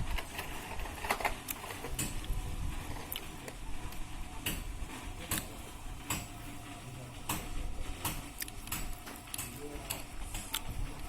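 Irregular sharp clicks and knocks over a low steady rumble, from a Maruti Ritz with a steering noise fault.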